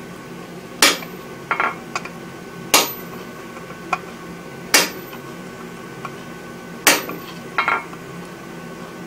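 Sledgehammer blows on a curved hot-cut chisel held against red-hot steel on an anvil, hot-cutting a curved outline. Four heavy metallic strikes come about two seconds apart, each followed by a lighter knock.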